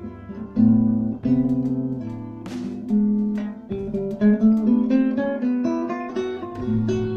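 Instrumental music: a guitar playing a run of plucked notes over lower bass notes.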